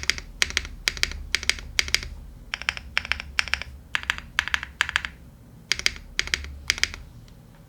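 Typing on an Aero75 gasket-mount mechanical keyboard with Owlab Neon linear switches on an FR4 plate and GMK keycaps: a steady run of keystroke clacks, about two to three a second, with a short pause a little past the middle. The typing stops shortly before the end.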